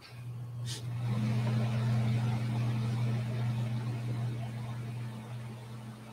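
A steady low motor hum that starts suddenly and keeps running, with a rushing noise that swells over the first two seconds and then slowly fades. A brief click comes just before the swell.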